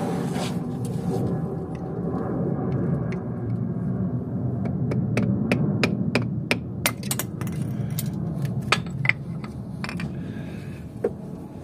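Hammer tapping on a homemade seal driver, working the driveshaft seal into an Opel F17 gearbox: a run of sharp, irregular taps, two or three a second, starting about four seconds in, over a steady low hum.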